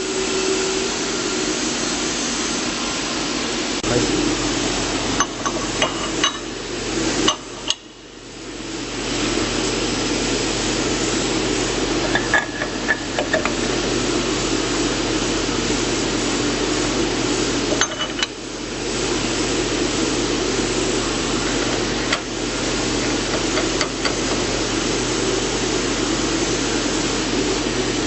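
Kentai KNC-500CBN CNC saw blade grinding machine running: a steady machine whir with a low hum, broken by scattered clicks and knocks. The sound drops away briefly about eight seconds in and builds back up over a couple of seconds.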